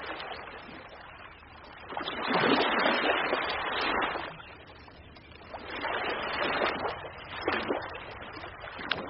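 Ocean waves breaking and washing in, each surge of surf swelling and then falling back, two larger ones with a shorter rush near the end.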